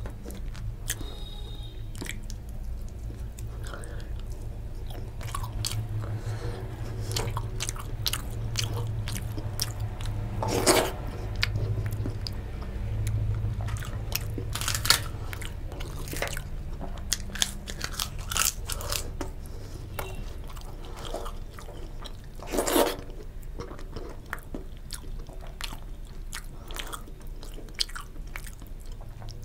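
Close-miked eating sounds: a person chewing and biting, with many sharp crunches from crisp fried papad, two of them louder and longer about a third and three quarters of the way through. A low steady hum runs underneath.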